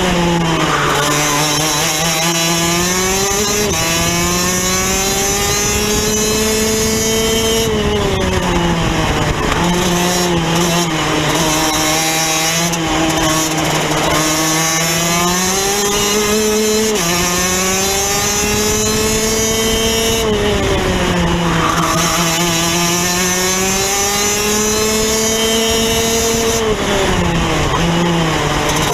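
Rotax DD2 kart's 125 cc two-stroke engine, heard onboard at racing speed, its revs climbing on the straights and dropping off into the corners several times over.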